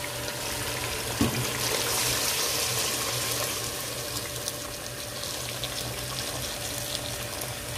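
Hot, just-boiled water pouring in a steady stream into a pressure cooker of fried mutton and masala, splashing into the gravy, with a single knock about a second in.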